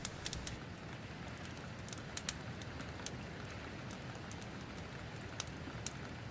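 Steady rain with scattered sharp drip-like ticks.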